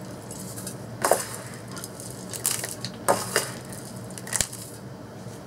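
A small hand scoop digging into a bowl of gritty potting mix, making a few short crunchy scrapes of soil and grit against the bowl.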